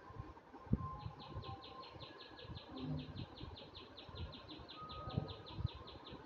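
A rapid, even chirping trill from a small animal, about eight pulses a second, starting about a second in. A few soft knocks of the marker and hand on the paper come beneath it, the loudest just before the trill starts.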